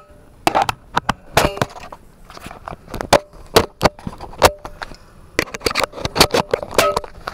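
Handling noise from a phone camera being held and moved, with fingers rubbing over it: irregular knocks, taps and scrapes, crowding together near the end.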